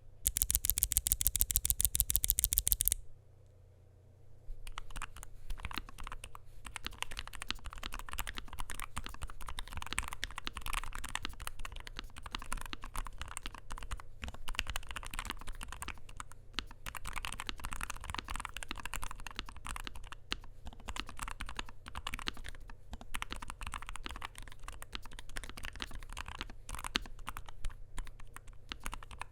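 Typing on a NuPhy Air60 V2 low-profile mechanical keyboard with lubed Gateron Low-profile 2.0 Red linear switches: a continuous stream of irregular key clicks. It opens with about three seconds of very rapid, evenly spaced loud clicks, then a brief pause before the typing begins.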